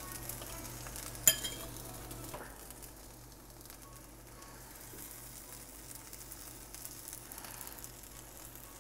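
Small semolina and vegetable pancakes sizzling faintly on a non-stick tawa, with a low hum under it. There is one sharp click about a second in.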